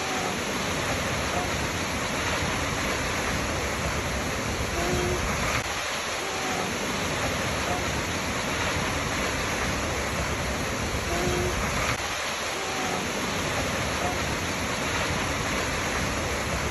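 Waterfall rushing steadily, an even wash of falling water, with a few brief faint tones recurring every few seconds.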